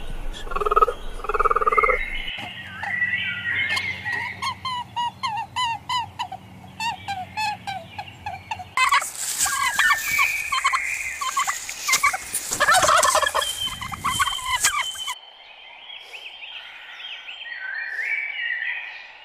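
Birds giving many short, repeated calls, in several clips cut together. The busiest and loudest calling is in the middle, with fainter calls near the end.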